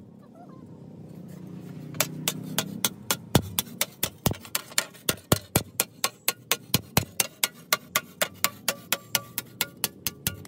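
Hammer beating a rusty steel sheet on an iron anvil block: rapid, even metallic blows about four a second, starting about two seconds in.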